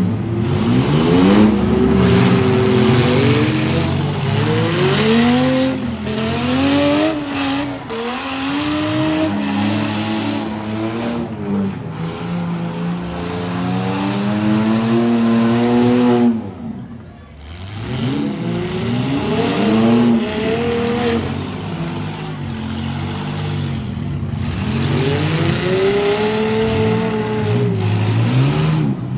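Several demolition derby SUVs' and vans' engines revving up and down at once as they maneuver and ram, with occasional sharp bangs of impacts. There is a brief lull a little past halfway.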